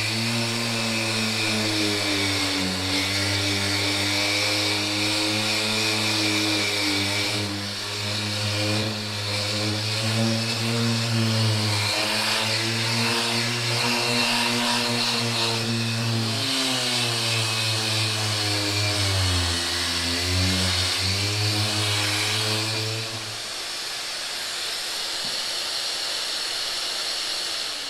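Bosch random orbital sander with a vacuum cleaner attached for dust extraction, both running while the sander works body filler; the motor hum wavers in pitch as the pad is pressed on and moved. About 23 seconds in the sander switches off while the vacuum runs on a little longer, then fades.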